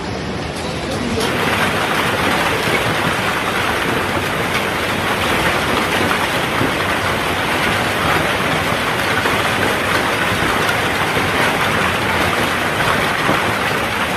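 Heavy hail and rain beating down, a dense steady hiss with many small hits of hailstones. It steps up in loudness about a second in.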